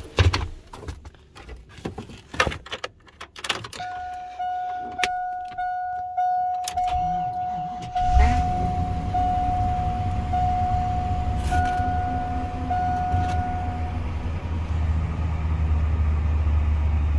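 Handling clatter and key jingle, then a dashboard chime dinging steadily. About eight seconds in, a Chevrolet pickup's engine cranks briefly and catches on a −18 °C cold start, settling into a high cold idle near 1,500 rpm while the chime keeps going for a few more seconds.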